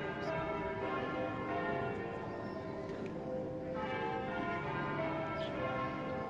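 Church bells ringing, several bells struck one after another with their tones overlapping and ringing on.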